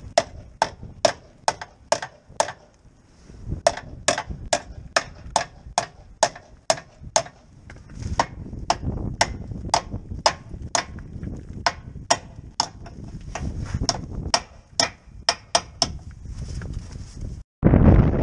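Ratchet wrench being worked on a bolt under the car: one sharp metallic click with a short ring about every half second, in four runs with brief pauses between them.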